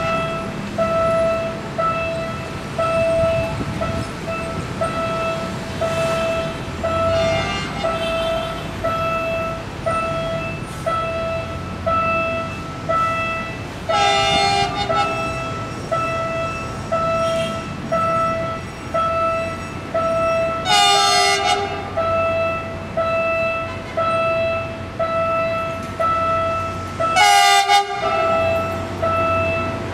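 Diesel locomotive approaching and sounding its horn three short times, about a third, two thirds and nearly all the way in, with the low rumble of the train growing near the end. Throughout, a warning signal beeps steadily a little over once a second.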